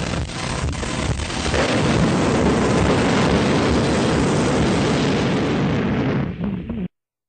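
A loud, dense noisy roar with a few sharp cracks in the first second or so, cutting off suddenly about seven seconds in.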